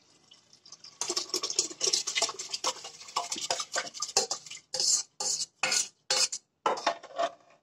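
Steel spoon scraping and clinking against a steel bowl as soaked rice is tipped out of it into a pressure cooker. It starts about a second in and goes on as a run of irregular scrapes and knocks, several a second.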